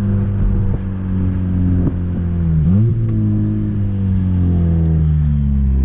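Honda Civic four-cylinder engine and straight-through sport exhaust droning inside the cabin while driving; the exhaust has no catalytic converter and no rear muffler, only a large intermediate muffler. The pitch eases down, dips briefly and climbs again about halfway through, then eases down slowly.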